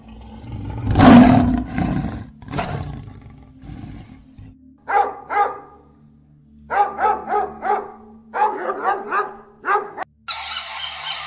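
A male lion roars once, loudly, and the roar fades out in a few grunts. Then a German Shepherd barks about ten times in short bursts. Near the end a dense, continuous honking chatter from pelicans begins.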